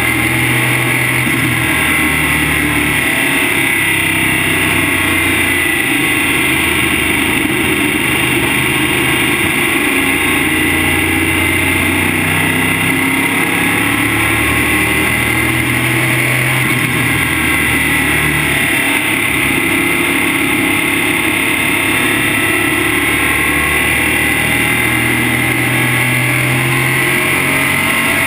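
Modified race car's engine at speed, heard from inside the cockpit. It runs loud and steady, its pitch rising and falling every few seconds as the car laps.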